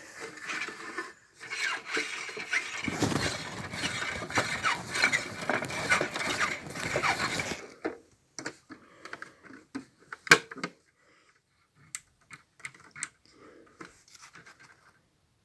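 A plastic toy washing machine being handled: several seconds of scraping and rustling, then scattered small clicks and taps, with one sharper click about ten seconds in.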